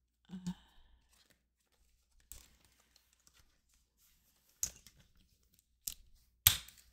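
Paper tab dividers and a small ring binder being handled: quiet paper rustling with a few sharp clicks, the loudest near the end.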